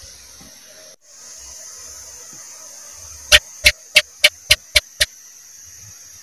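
House gecko (cicak) calling: a run of seven sharp chirps about halfway through, coming slightly faster toward the end, over a steady high hiss.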